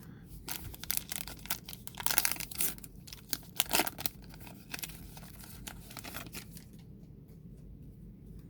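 A baseball card pack wrapper being torn open and crinkled by hand: a quick run of sharp crackling rips over the first four seconds or so, then only faint rustling.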